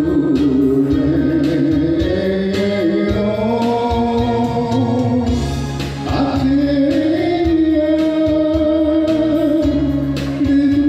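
A song with a band playing: a singer holds long, wavering notes over a steady bass and drum beat, with a short break about six seconds in.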